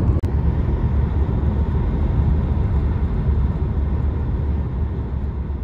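Steady low road and engine rumble inside a moving car's cabin, broken by a momentary dropout just after the start and fading out near the end.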